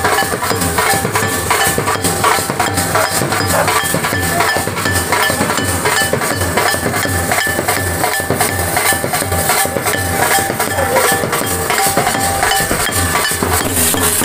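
Continuous rhythmic percussion: steady drum beats under rapid, dense metallic clinking strikes.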